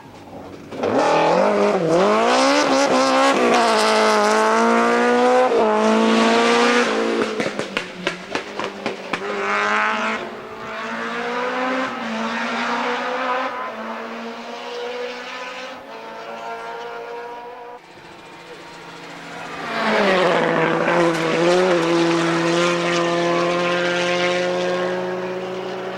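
Rally car engine at full throttle, revs climbing and dropping back in steps through the gears, with sharp popping and crackling from the exhaust when the throttle lifts. After a dip near the middle, another hard burst of acceleration comes up loud about twenty seconds in.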